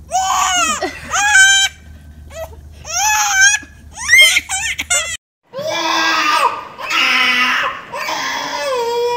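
A baby's high-pitched squeals in short bursts, then, after a sudden cut, a toddler crying in longer, drawn-out wails.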